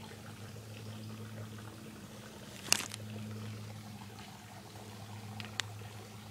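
A low steady hum, with one sharp click a little under three seconds in and two fainter clicks near the end.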